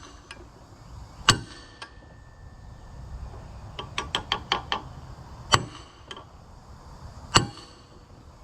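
Hammer driving a steel punch against a stuck collar on a Tulsa 34 winch shaft, which is seized by rust. There are three hard metallic blows with brief ringing, about a second in, past the middle and near the end, and a quick run of about six lighter taps between them.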